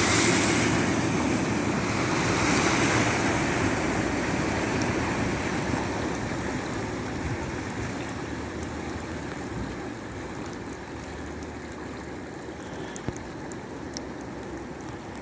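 A vehicle ploughing through deep floodwater on a road, with a steady rush of churned and splashing water. The rush is loudest at the start and fades gradually as the vehicle draws away.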